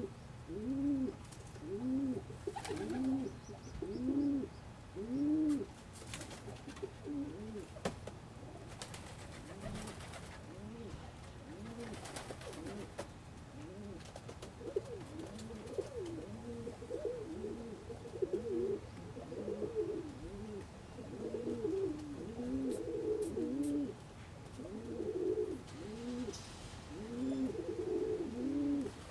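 Domestic pigeons cooing: a run of low coos that rise and fall, about one a second at first, with more birds overlapping from about halfway through.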